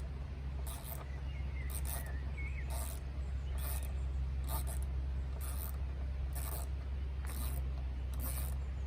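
Torx screwdriver loosening a screw, giving a short scraping click with each turn, about once a second, over a steady low hum.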